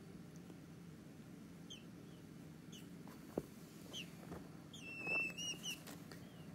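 Week-old peachick peeping faintly: a few short, high chirps, then a longer and louder peep about five seconds in. A single sharp click, the loudest moment, comes about three and a half seconds in.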